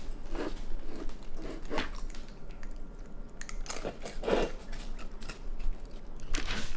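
A raccoon chewing colored Goldfish crackers: irregular crisp crunches and clicks, the loudest about four and a half seconds in.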